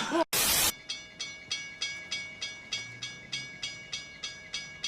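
A sudden short burst of static-like noise, then an even, rapid ticking, about three ticks a second, over a faint steady tone.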